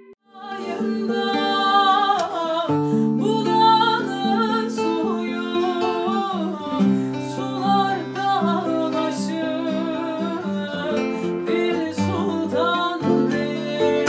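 A woman singing with plucked-string accompaniment from a bağlama (Turkish long-necked lute) and an acoustic guitar. The music starts about half a second in, and lower accompanying notes join a couple of seconds later.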